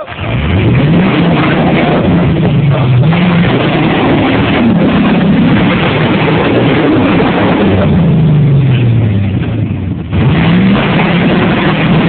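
5.7-litre Vortec V8 of a Jeep Wrangler YJ revving hard under load, its pitch climbing and falling over and over, with a brief drop about ten seconds in before it revs up again. The revving comes from the open-differential wheels spinning for grip on damp rock.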